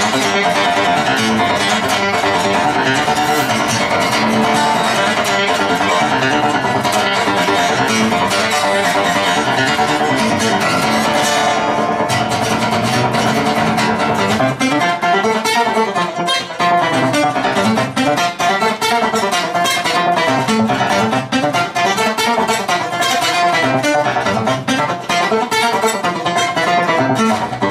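Acoustic guitar played solo: dense strumming for the first half, then about halfway through a more broken, picked pattern with a melodic line running through it.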